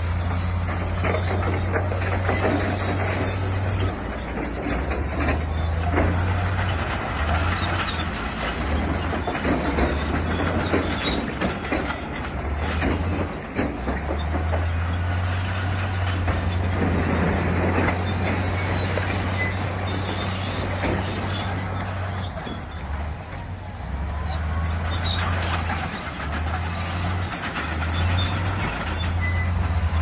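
Heavy diesel earthmoving machinery at work: a steady low engine drone that dips briefly several times, with scattered clanks and rattles over it.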